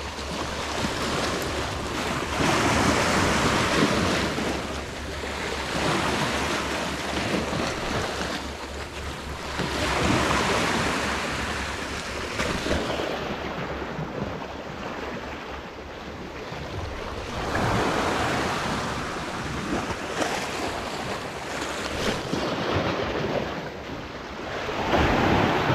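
Sea waves surging and washing against the rocks of a rocky shore. The noise rises and falls every several seconds as each swell comes in and drains away.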